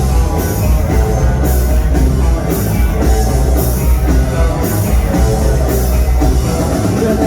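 Live rock band playing an instrumental passage: distorted electric guitars, heavy bass and a drum kit, with a cymbal crash about once a second.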